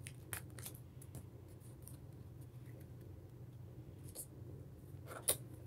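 Foil Pokémon booster pack being torn open and handled: faint, scattered crinkles and crackles of the foil wrapper, with one sharper crackle near the end.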